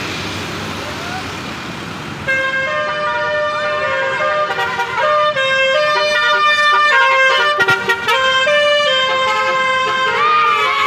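Indonesian bus 'telolet' horn: a multi-tone musical horn that starts about two seconds in and plays a stepped melody of held notes, with rising-and-falling swoops near the end. Road traffic noise comes before it.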